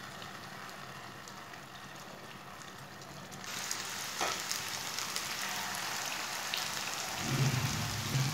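Beef kofta balls shallow-frying in hot oil in a frying pan: a steady sizzling hiss with fine crackling, faint at first and louder from about three and a half seconds in.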